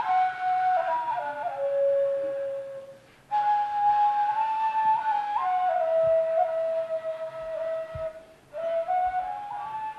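Slow solo melody on a flute-like wind instrument: long held notes moving by small steps, broken by two short pauses for breath, about three seconds in and about eight seconds in.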